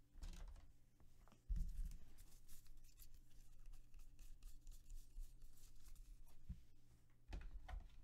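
Faint handling of a stack of Bowman baseball trading cards: cards sliding and flicking against one another as they are sorted. A low thump on the table comes about one and a half seconds in, the loudest sound, and another comes near the end.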